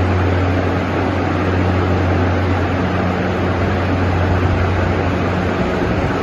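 Refrigeration condensing unit running: fans blowing air with a steady low hum from the machinery underneath.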